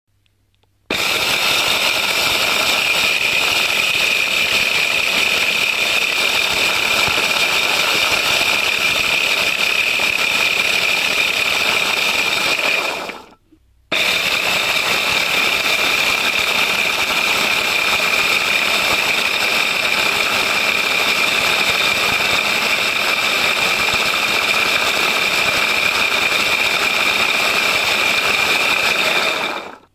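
Electric blender grinding linseed: a steady high motor whine with the rattle of seeds in the jar. It runs for about twelve seconds, stops briefly, then runs again for about sixteen seconds.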